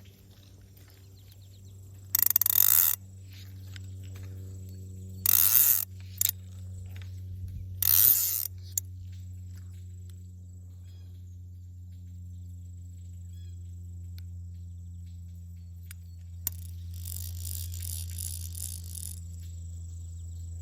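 Fly reel clicker ratcheting in three short, loud bursts, then a softer, longer run of clicks near the end, over a steady low hum.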